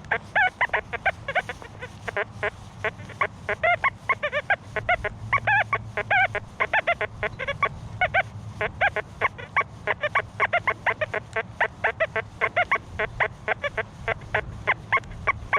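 XP Deus II metal detector giving a rapid chatter of short beeps at varying pitches, several a second, as the coil sweeps over ground full of iron; higher tones mixed in among the iron signals are what the detectorist takes for a target hiding in the iron.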